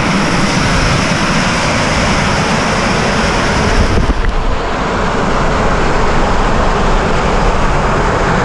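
Hot natural geyser blasting steam and spray in a steady, loud rush, with the river running hard below it. About four seconds in, the sound turns duller as the spray reaches the microphone.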